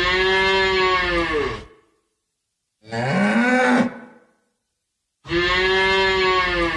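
A cow mooing three times: two long, steady moos with a shorter call between them that rises and falls in pitch, each separated by dead silence.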